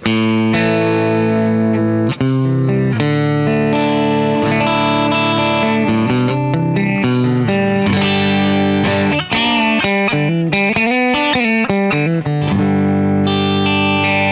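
Leo Jaymz Monsoon electric guitar played through an amp on its middle single-coil pickup with distortion, mixing held chords with quick runs of single notes. The tone is a little bright.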